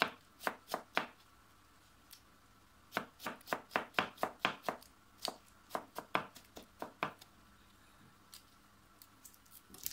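Kitchen knife dicing cucumber on a white plastic cutting board: quick, even knife strikes, about four a second, in two runs with a pause of about two seconds between them. A few scattered lighter taps follow near the end.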